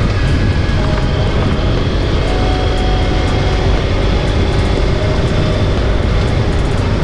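Steady engine and wind noise of a motorcycle on the move, running evenly at a constant speed.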